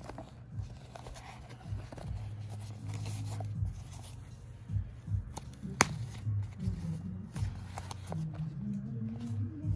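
A black canvas cosmetic pouch being handled and opened, with light fabric rustling and a sharp click about six seconds in, over soft background music with low held notes.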